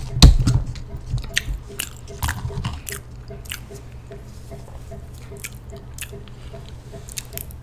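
Close-miked eating of a burger, fries and onion-ring meal. A loud bite comes about a quarter second in, followed by chewing with many short, wet clicks and smacks from the mouth.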